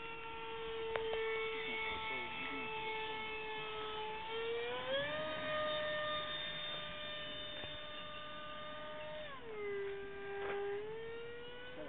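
Electric motor and propeller of a radio-controlled model airplane in flight: a steady whine that rises in pitch about halfway through, holds, then drops and starts climbing again near the end.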